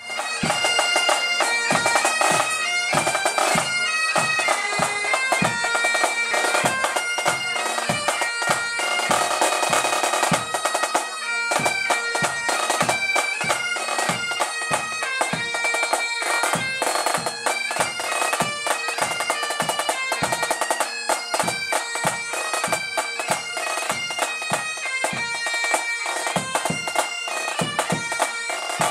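Pipe band playing a tune: bagpipes carrying the melody over their steady drone, with drums, including a bass drum, beating the rhythm throughout.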